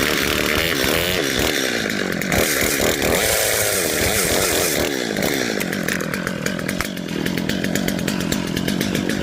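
Chainsaw running and cutting into wood, its pitch rising and falling as the engine revs and labours in the cut.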